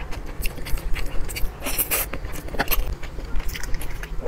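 Person chewing a mouthful of sweet corn, with many small wet mouth clicks and crackles coming irregularly.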